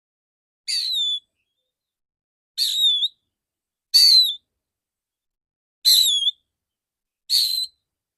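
Male oriental magpie-robin giving five short, loud whistled calls about every one and a half seconds, each ending in a quick downward slide in pitch.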